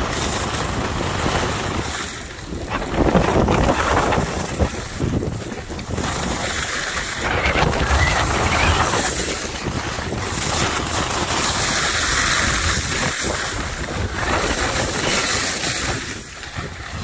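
Wind rushing over the microphone of a skier moving downhill at about 25 mph, with skis hissing and scraping on packed snow. The rush swells and eases every few seconds as the skier turns.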